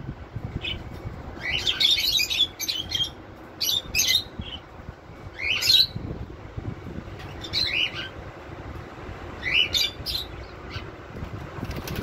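Indian ringneck parrots chirping and squawking in short bouts, about five spread across the time, each a cluster of quick high rising calls.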